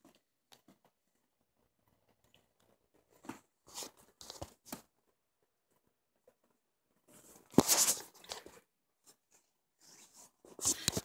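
Curtain fabric and hands rubbing and scraping against a phone's microphone: irregular bursts of rustling, the loudest about seven and a half seconds in, with near-quiet gaps between them.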